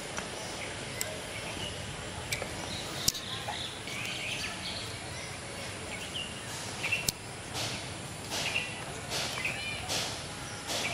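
Outdoor ambience: a steady background hiss with scattered bird chirps and a few sharp clicks, then from about halfway a series of soft swishing noises roughly once a second.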